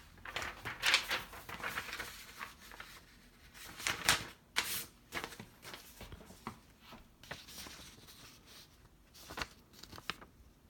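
A sheet of typing paper being handled and rustled, with scattered crinkles and a few light knocks, busiest in the first five seconds.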